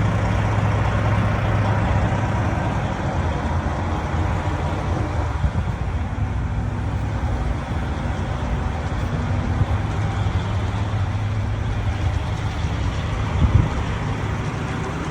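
A motor vehicle on the road, a steady low engine and road drone, with a short louder bump near the end.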